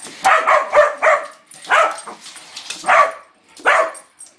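A mixed-breed dog barking at a rolling toy doll: a quick run of about four barks, then three more spaced about a second apart.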